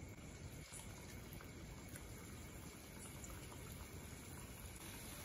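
Faint, steady sizzling and bubbling of hot oil as pieces of rice-flour dough deep-fry in an iron kadai, with light crackles scattered through.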